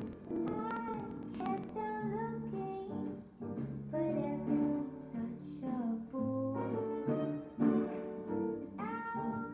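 Background music: a melody moving over held bass notes.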